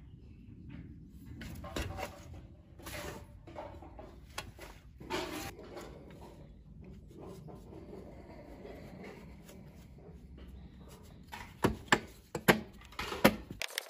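Hands pressing and rubbing moulding sand inside a steel ring flask: soft gritty rustles and scrapes over a low steady rumble. Near the end come several sharp knocks as a round-ended hand rammer is taken up.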